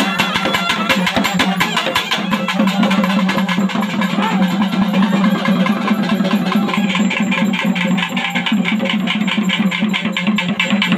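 Live traditional South Indian festival band: fast, dense drumming on double-headed barrel drums over a steady low drone. A reed pipe plays a wavering melody that fades out after about two seconds.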